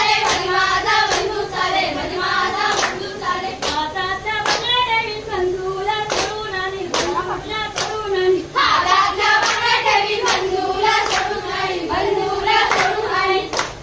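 A group of women singing a Konkani jakhadi folk dance song in unison, with sharp handclaps falling in with the rhythm.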